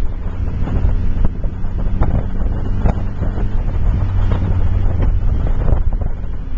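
A 1960 Austin-Healey 'Bugeye' Sprite's 948 cc four-cylinder engine runs with a steady low drone while the car cruises. Wind rushes over the microphone.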